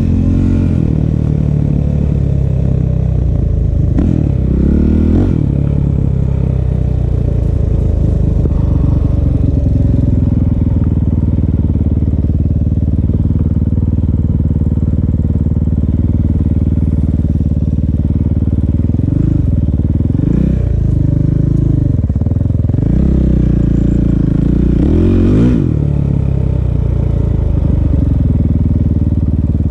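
Honda CRF450L single-cylinder four-stroke dirt bike engine running under way at steady revs. Its pitch rises and falls a few times as the throttle is worked, mostly in the second half.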